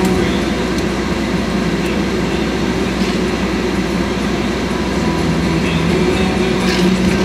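A running motor with a steady, constant-pitch hum.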